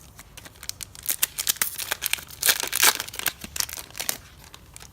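A foil trading-card booster pack wrapper crinkling and tearing as it is opened, a dense run of crackles from about a second in until near the end.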